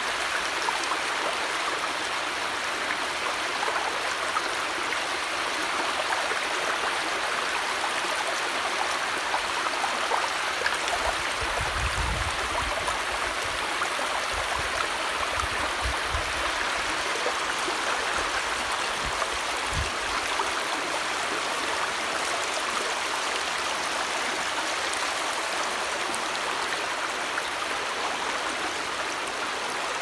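Fast-flowing river water rushing and breaking in white, foaming waves close by: a steady rushing noise, with a few low rumbles around the middle.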